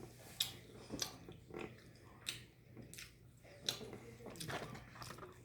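A person chewing and smacking food close to the microphone, with about six wet smacks at a steady pace, under a faint steady hum.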